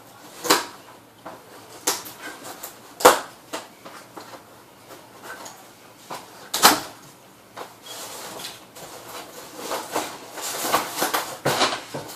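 Handling noises from an airsoft double-barrel shotgun being unboxed and handled: a few separate sharp plastic clicks and knocks, the loudest about three seconds in, then denser rustling near the end.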